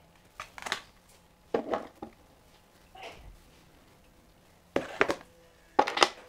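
Long-nose pliers and steel pistol parts clinking and knocking against a glass tank of rust remover as the parts are lifted out, in about five short bursts of clatter, the loudest near the end.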